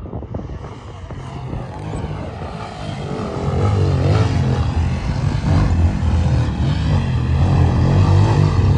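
Motorcycle engines revving under load as the bikes climb a steep rocky gully, growing louder from about three seconds in as one comes up closer.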